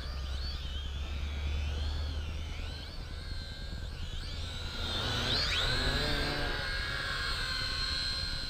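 XK X260 brushed-motor quadcopter in flight, its motors and propellers whining with a pitch that keeps wavering up and down as the throttle and attitude change, dipping sharply and climbing back about five seconds in. A steady low rumble runs underneath.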